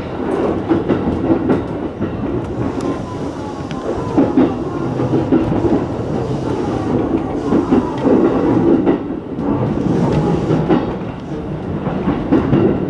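Running noise of a JR East E233-1000 series commuter train heard from the cab of its unpowered lead car: steel wheels rolling and clattering over rail joints, with no traction motor sound.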